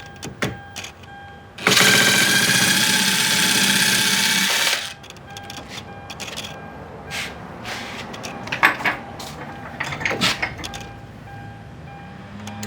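A loud, rapid rattling buzz lasting about three seconds, amid scattered clicks and knocks from tools and parts being worked on a car door.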